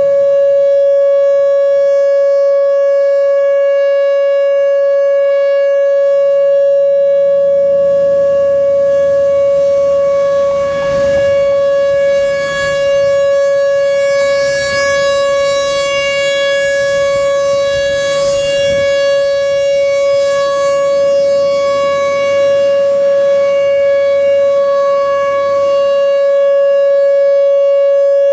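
Whelen Vortex R4 electronic outdoor warning siren sounding the Alert signal in its monthly test: one loud, steady tone held at the same pitch throughout.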